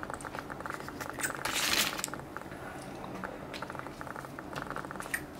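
Packaging crinkling briefly about a second and a half in, over a steady faint crackle.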